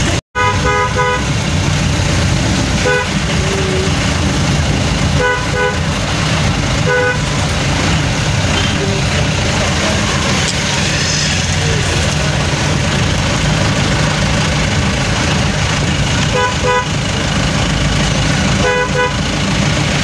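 Vehicle engine and tyres running on a wet road, heard from inside the cab, with short horn honks sounding about six times, several as quick double beeps. The sound cuts out for an instant just after the start.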